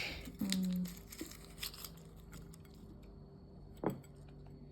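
Light handling of food and wrappers on a table: a short rustle at the start, then a few soft taps and a sharper knock nearly four seconds in.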